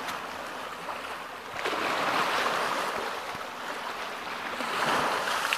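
Small waves washing onto a pebbly lake shore, a steady wash that swells about two seconds in and again near the end.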